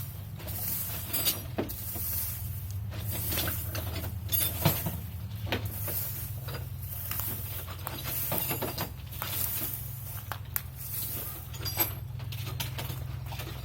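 A steady low hum with scattered sharp clicks and clinks, like hand tools and sockets being handled and knocked together.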